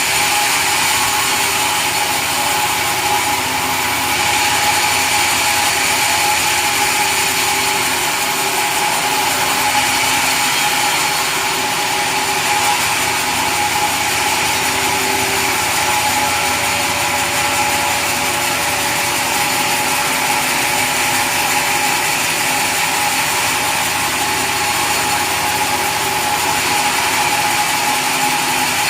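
Sawmill saw running steadily, a constant whine over machine noise.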